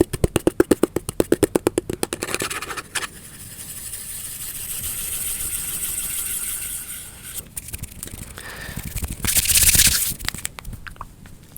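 Rapid, even tapping close to the microphone for about two and a half seconds. The tapping gives way to a hissing rub or scratch that swells and fades, then a few scattered scrapes and one loud brushing sweep near the end.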